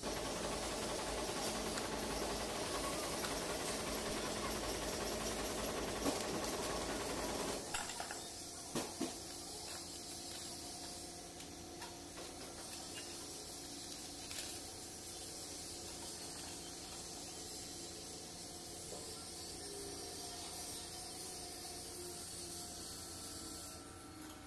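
Steady hiss of workshop background noise, louder for the first several seconds, with a few faint clicks and knocks of metal engine parts being handled. The hiss cuts off suddenly near the end.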